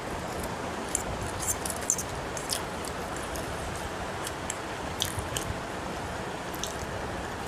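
A person eating chow mein noodles with a fork: chewing and slurping, with a scattering of short, sharp clicks, over a steady background hiss.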